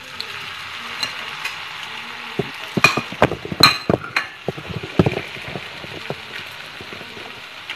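Potato sticks frying in a pan of oil, just added to the medium-hot oil: a steady sizzle, with a run of sharp pops and knocks in the middle.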